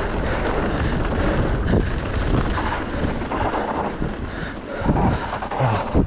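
Mountain bike descending a dirt trail at speed: wind buffeting the microphone over the tyres rolling on loose dirt, with a few knocks as the bike hits bumps.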